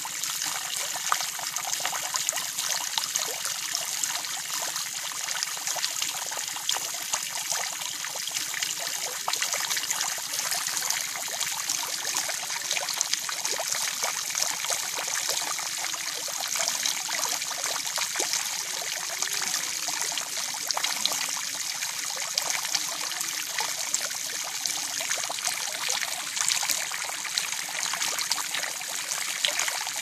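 Water falling in thin streams onto the surface of a garden pond, splashing steadily with a dense hiss of droplets.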